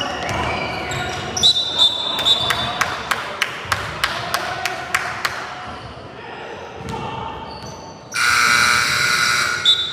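Basketball bouncing on a gym floor, a couple of bounces a second, with short sneaker squeaks; then, about eight seconds in, a loud game buzzer sounds for about a second and a half.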